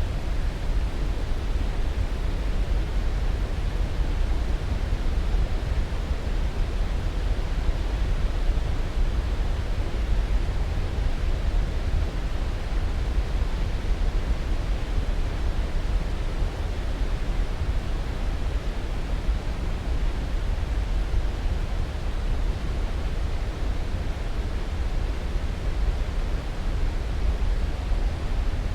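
Steady white-noise sleep sound: an even, deep rushing hiss that never changes, heavier in the low end than in the highs.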